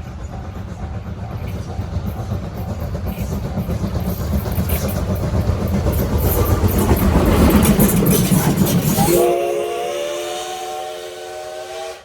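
D51 200 steam locomotive passing close by: a heavy low rumble of exhaust and running gear builds to a peak about eight seconds in, with a level-crossing bell ringing in a steady repeating ding behind it. About nine seconds in the sound switches abruptly to the locomotive's chime steam whistle, a long chord of several notes held for about three seconds and rising slightly in pitch.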